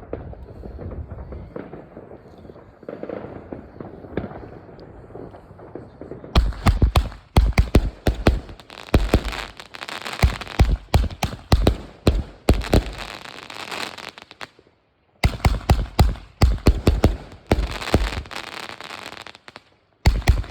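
Fireworks going off. Quieter scattered crackling gives way, about six seconds in, to rapid volleys of loud bangs and crackles, which break off abruptly twice for about a second each.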